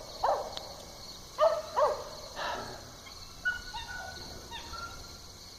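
A few short, pitched animal calls, the loudest two close together about a second and a half in, then faint thin whistled notes later on, over a steady high insect chorus.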